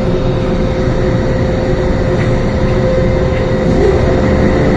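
MTR M-Train electric multiple unit standing at a platform with its doors open, its onboard equipment giving a steady hum with one clear constant tone over a low rumble.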